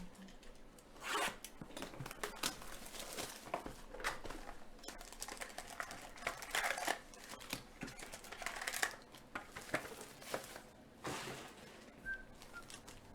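A box of 2020 Donruss Optic football cards and its wrapping being torn open and handled: irregular tearing and crinkling of plastic and cardboard.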